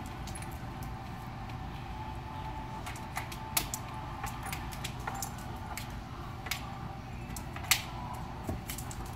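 A dog's collar and leash hardware jingling in short, light clinks as the dog moves and rises up against a counter, the sharpest clinks about three and a half seconds in and near the end, over a steady low hum.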